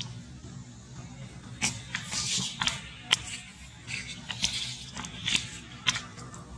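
Dry fallen leaves crackling and rustling under footsteps in short bursts, with a few sharp clicks, over a steady low hum.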